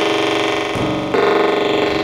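Sustained, buzzy electronic drone tones from an inflatable bop bag played through contact microphones and effects, with several pitches sounding together. A new, louder layer of tone comes in just over a second in.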